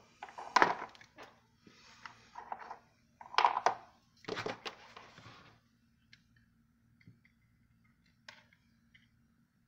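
Wooden Jenga blocks being handled and pushed together on a cutting mat: rubbing, sliding and knocking sounds, the loudest about half a second and three and a half seconds in. These stop after about five seconds, followed by a single small click near the end as the hot glue gun is picked up, over a faint steady hum.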